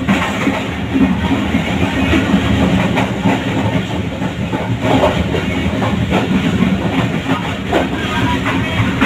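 Passenger train running along the track, heard from inside a carriage: a steady rumble of wheels on rail, with a few clacks over rail joints.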